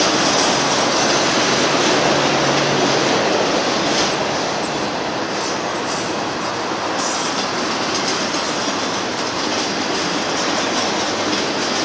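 Double-stack container cars of a freight train rolling past: a steady noise of steel wheels on rail, with a few sharp clicks between about four and seven seconds in.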